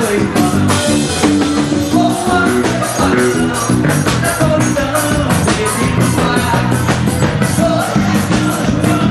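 Forró band music with a steady, fast beat and held instrumental notes.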